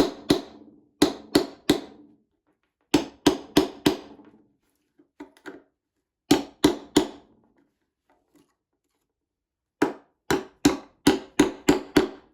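Hammer tapping in quick bursts of several blows with pauses between, each blow ringing briefly: working at a small nail stuck in a wooden toolbox. The longest run, about seven blows, comes near the end.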